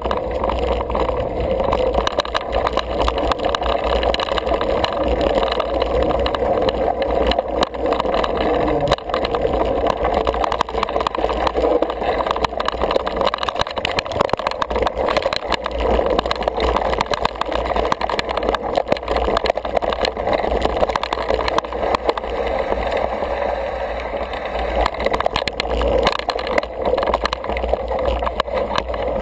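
Single-speed 29er mountain bike ridden over a rough dirt singletrack: a continuous rumble and rattle of tyres and frame over the ground, with frequent small knocks and a low wind buffeting.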